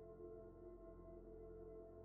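Faint ambient background music: a soft pad of steady held tones.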